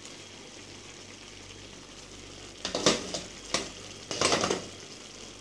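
Shrimp simmering in a pan of 7Up sauce, a steady bubbling hiss as the sauce boils down. About halfway through, a few loud knocks and a short scraping clatter against the pan.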